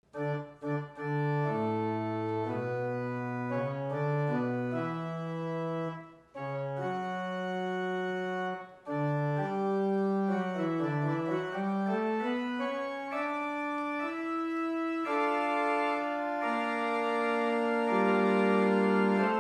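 Organ postlude closing the church service: held chords and moving lines of steady, sustained notes, with two brief pauses before the playing grows fuller near the end.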